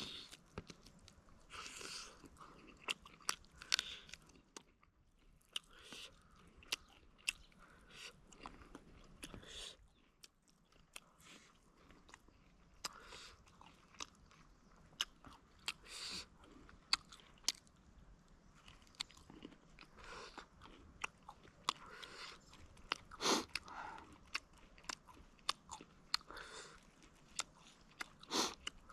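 A person eating spicy tandoori chicken close to the microphone: irregular bites, chewing and crunching, with many sharp clicks and smacks.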